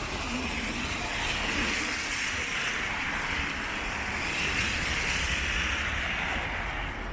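Car tyres hissing on a wet road as traffic passes, swelling twice and fading.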